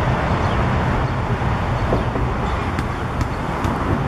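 Steady outdoor background noise with a low rumble, and a few sharp taps in the second half.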